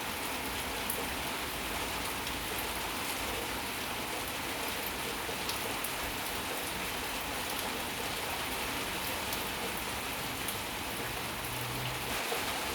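Steady rain falling, with scattered individual drop ticks over an even hiss.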